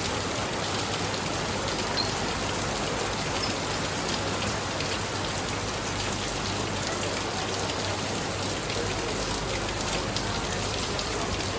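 Steady rain falling, an even hiss of many drops hitting surfaces.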